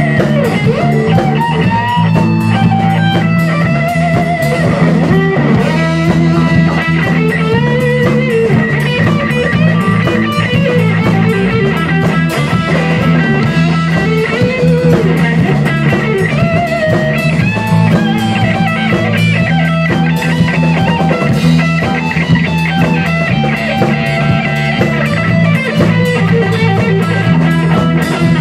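Rock band playing live: electric guitar over bass guitar and a Tama drum kit, a loud, steady instrumental passage with no singing.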